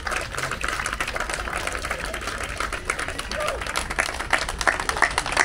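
Audience applause: a dense patter of many hands clapping, with a few voices mixed in and some louder single claps standing out near the end.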